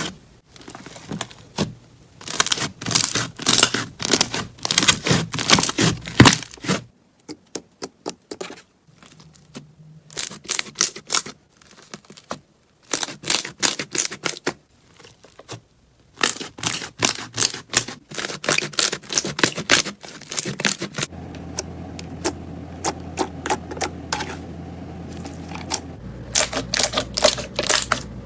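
Slime being squeezed and pressed by hand, with rapid clusters of sharp pops and crackles from air bubbles bursting in it, in several short takes with brief pauses between.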